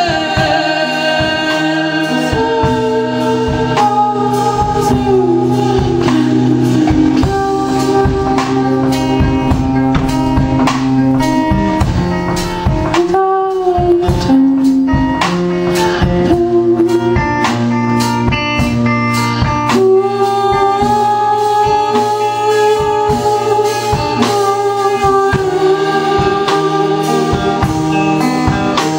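A song sung live over strummed or plucked guitar, with long held, wavering vocal notes.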